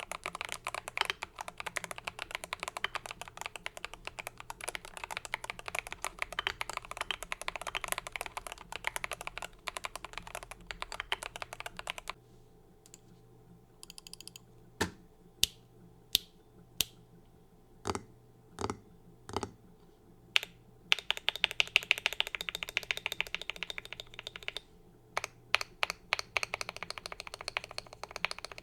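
Typing on a GMMK Pro mechanical keyboard with hand-lubed LOGA Cha Thai switches, a brass plate and Akko keycaps. Fast continuous keystrokes for about twelve seconds, a short pause, then about eight single, louder key presses spaced roughly half a second to a second apart, then fast typing again.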